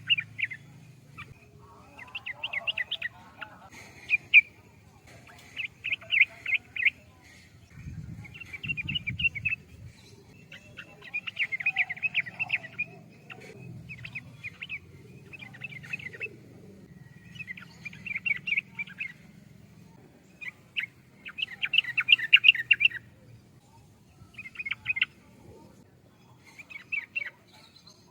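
Yellow-vented bulbul (trucukan) singing: short bubbly, chattering phrases of quick notes, about one every two seconds, over a faint low hum.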